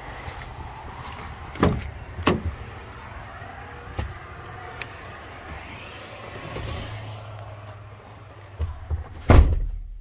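Scania truck running with a steady low engine hum, with sharp knocks about one and a half, two and four seconds in and a louder thump near the end.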